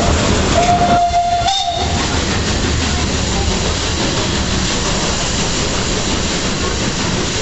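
Steam whistle of the HG 3/4 steam locomotive giving one steady blast of about a second, just over half a second in. Around it runs the continuous rumble and rattle of the moving train carriage.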